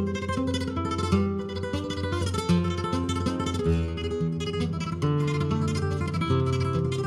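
Flamenco guitar playing alone in soleá, a run of plucked notes and chords with sharp attacks.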